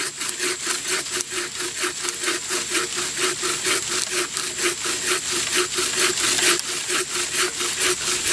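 Hand saw cutting through a dead tree trunk: quick, even back-and-forth strokes, about four a second, with a steady high insect drone behind.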